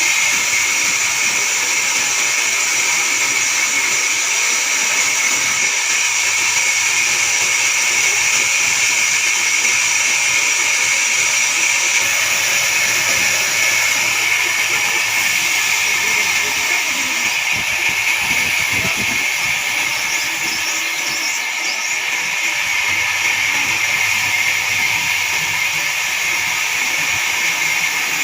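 Horizontal band sawmill running steadily with a high-pitched whir and hiss, its band blade sawing through a large pine log.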